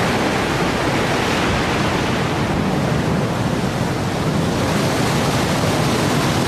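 Qiantang River tidal bore: a wall of churning water surging in and breaking along the river bank, a loud, steady rush of turbulent, breaking water.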